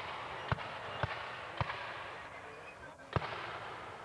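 Scattered shots from flintlock muskets firing black-powder blanks: about five sharp, separate reports, irregularly spaced, with a longer pause before the last one. The shots sound over a steady noisy background.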